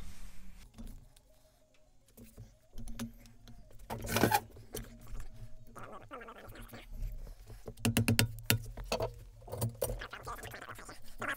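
Workshop handling noises: clanks and clicks as a sheet-aluminium rib blank between wooden form blocks is set into a bench vise and worked with a steel rod tool. A louder knock comes about four seconds in and a quick run of sharp clicks near eight seconds.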